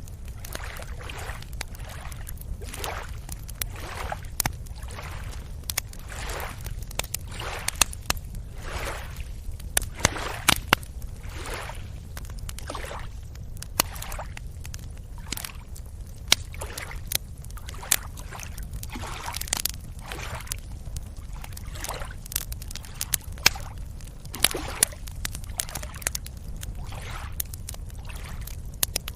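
Small waves lapping and sloshing at the water's edge over a steady low rumble, with repeated short washes and sharp little clicks.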